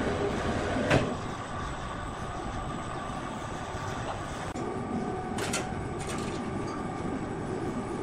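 Overhead crane travelling with a large log slung from steel cables: a steady mechanical rumble, with a sharp knock about a second in and a few brief clicks around the middle.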